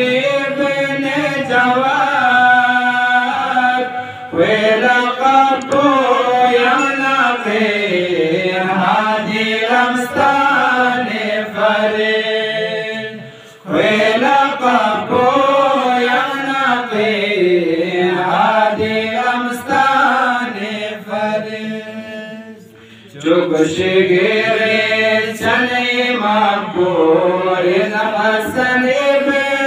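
A man chanting a devotional qasida unaccompanied, in long melodic lines. There are short breaks between lines about 4, 14 and 23 seconds in.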